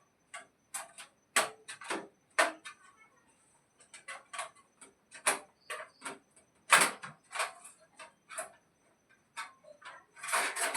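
Irregular sharp clicks and light knocks of small hard objects being handled, two or three a second, with a louder one about two-thirds of the way in and a quick cluster near the end.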